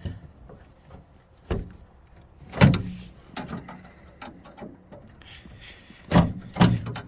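Sharp knocks and clicks from a Dodge Caravan's steel door as hands and tools work a plastic lock-rod clip free inside it, about five separate strikes with the loudest a little under three seconds in.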